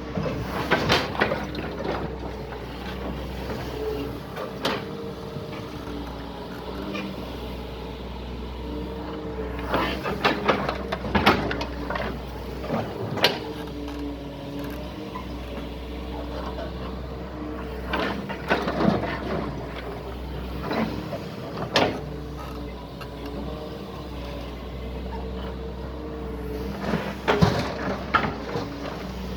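Doosan DX140 excavator's diesel engine running steadily under a wavering tone, with repeated sharp knocks and clanks as it works.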